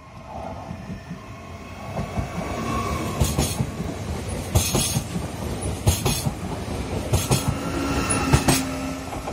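Trenitalia 'Pop' electric multiple unit passing close along the platform, growing louder over the first two seconds. Then come sharp wheel clacks over the rail joints, about one every second and a bit, and a faint steady squeal near the end.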